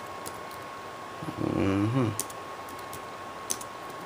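Computer keyboard being typed on slowly, a handful of separate sharp key clicks spread across a few seconds. A short murmured vocal sound comes about a second and a half in.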